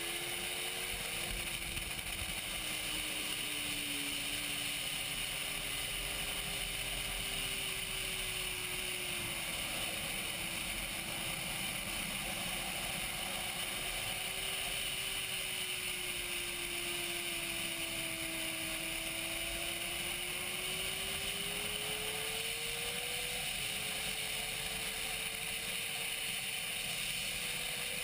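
Sportbike engine running at track speed with a steady rushing hiss, its note slowly rising and falling.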